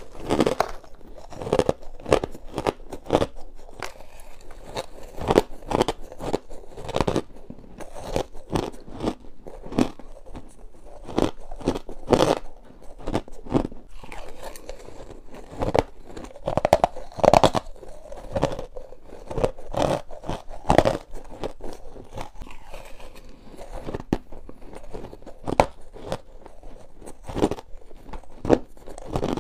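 Chunks of crushed ice bitten and chewed close to the microphone: a quick, uneven run of sharp crunches, some much louder than others.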